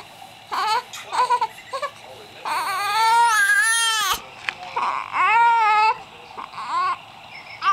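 Infant crying: a few short cries, then two long wavering wails, and a short cry near the end.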